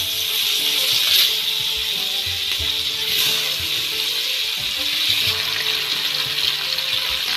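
Turmeric-and-salt-coated fish pieces sizzling in hot mustard oil in a wok, the frying flaring louder about a second in and again about three seconds in as more pieces are laid into the oil.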